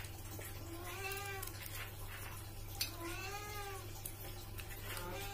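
A cat meowing twice, each drawn-out call rising and then falling in pitch, with a single sharp clink between the calls, over a steady low hum.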